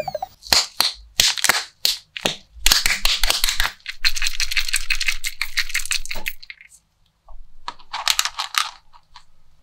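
Plastic foil wrapper of a Kinder Joy egg crinkling and crackling as it is handled in a gloved hand. First come a few sharp separate crackles, then a dense run of crinkling lasting a few seconds, and a last short burst near the end.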